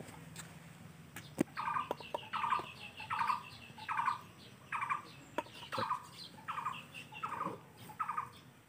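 A bird calling over and over, short rasping notes a little over one a second. A few light clicks sound in between.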